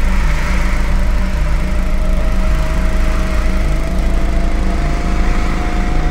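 A small motor running steadily with a fast, even mechanical rattle, and a faint tone over it slowly rising in pitch.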